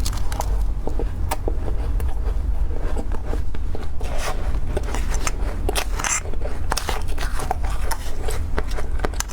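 Close-miked crunching and scraping of freezer-frost ice: a dense run of sharp, irregular crackly crunches over a steady low rumble.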